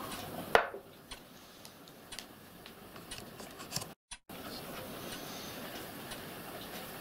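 Small metal burner parts handled on a wooden bench: a sharp metallic clink with a brief ring about half a second in, then scattered light clicks and taps. The sound cuts out completely for a moment around four seconds in.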